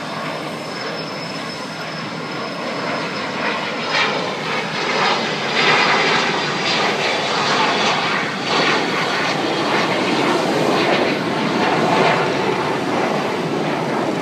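Jet airliner's engines at takeoff power during its takeoff roll and climb-out: a broad, rushing engine noise that grows louder from about four seconds in, with a thin high whine slowly falling in pitch.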